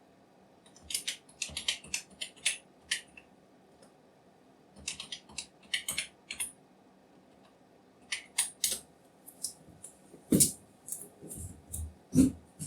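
Computer keyboard keys clicking in short bursts of typing, with pauses between, and two heavier, deeper keystrokes or knocks near the end.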